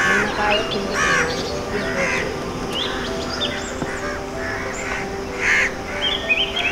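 Birds calling: short harsh calls repeated about once a second, with quicker high chirps near the end, over background music with long held notes.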